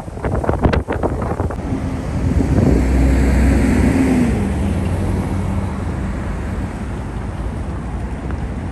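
City street traffic: a bus passes close by about three seconds in, its engine hum swelling and then falling in pitch as it goes. Wind buffets the microphone in the first second or so.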